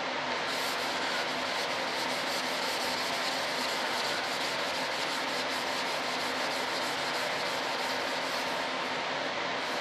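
A hand rubbing over a flat board in repeated strokes, starting about half a second in, over a steady background hiss.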